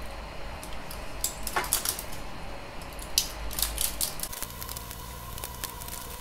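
Support material being snapped and picked off a freshly printed plastic 3D print by gloved hands: scattered small clicks, cracks and scrapes, busiest in the first half.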